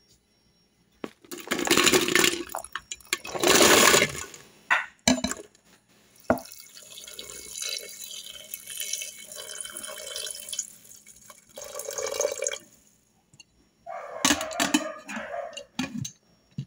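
Jackfruit seeds tipped into an aluminium pressure cooker pan in two loud bursts, then water poured from a jug over the seeds for about six seconds. Near the end comes a cluster of metallic knocks as the pressure cooker lid is fitted.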